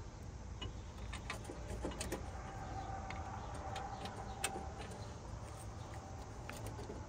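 Scattered light clicks and knocks as hands pull at the plastic fan shroud, hoses and core support of a Jeep Cherokee XJ engine bay, with a faint steady whine in the middle.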